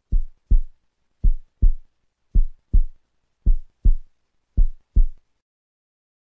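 Heartbeat sound effect: five pairs of deep thumps, about one pair a second, stopping about five seconds in.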